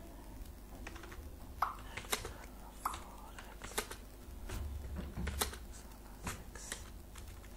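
Computer keyboard being typed on: single, separate keystroke clicks at an uneven pace, roughly one every half second to second.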